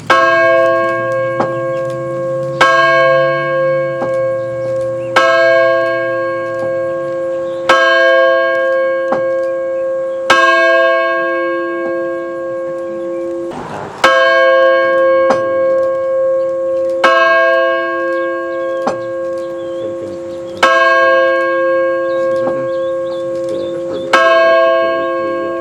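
A large bell tolling, struck over and over with heavier and lighter strokes in turn, its ringing tone carrying on between strikes.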